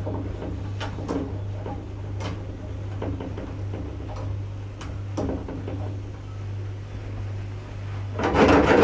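Scattered light clicks and knocks over a steady low hum, then near the end a louder rushing splash of water being poured into the cooking pot.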